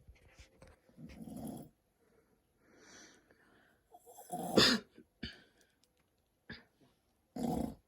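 A man snoring in his sleep: several ragged snores and snorts at uneven intervals, the loudest a little past halfway, with a few short clicks between them.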